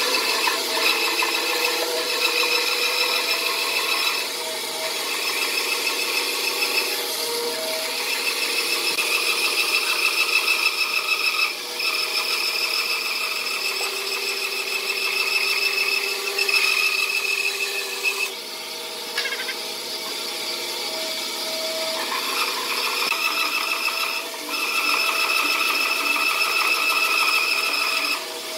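Band saw cutting lengthwise through a thick bark-edged wood slab: a steady whine of several tones that rises and falls in level as the wood is fed, dipping briefly a few times.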